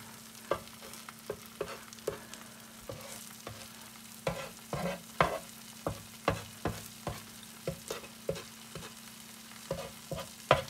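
A spatula scraping and tapping on a flat griddle, pushing in the melted cheese at the edges of cheddar crisps, in irregular short strokes about once or twice a second, the loudest near the end. Under it the cheese sizzles faintly as it fries, with a steady low hum.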